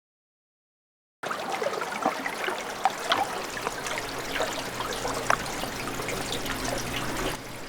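Water splashing and trickling, starting abruptly about a second in, with many small, sharp splashes and drops throughout.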